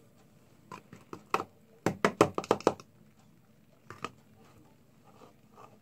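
A scatter of sharp clicks and knocks, with a quick run of about six close together about two seconds in and a single one near four seconds.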